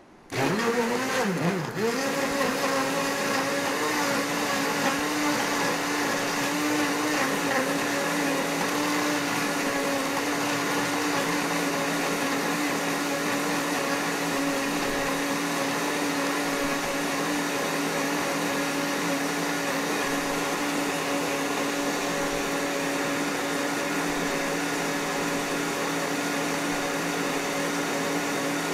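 Countertop electric blender switched on: the motor rises in pitch over the first couple of seconds, then runs steadily while blending frozen coffee cubes with ice cream, milk and sugar.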